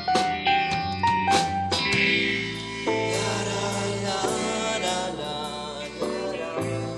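Acoustic band playing an instrumental passage of a song: quick plucked or struck notes for about two seconds, then held chords.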